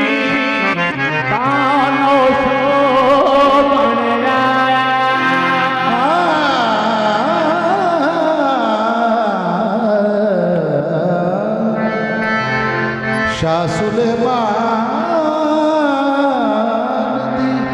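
Qawwali music: harmoniums playing steadily, with a singer's sliding, ornamented runs without clear words in the middle.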